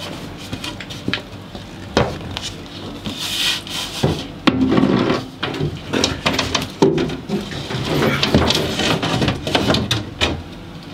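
Plywood boards scraping and rubbing against the wooden sides of a box as they are worked into place, with many short knocks and clicks of wood on wood.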